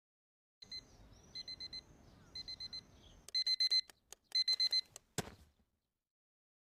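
Electronic alarm beeping in quick groups of four, about one group a second, faint at first and much louder from about three seconds in. It stops, and a single sharp click follows about five seconds in.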